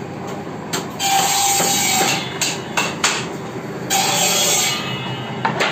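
Hammer blows on wood: a few separate strikes, with two longer stretches of scraping noise, about a second in and about four seconds in.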